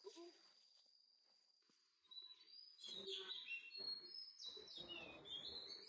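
Faint birds chirping and twittering, with short gliding calls starting about two seconds in, over a scratchy rustle of dry leaves and brush.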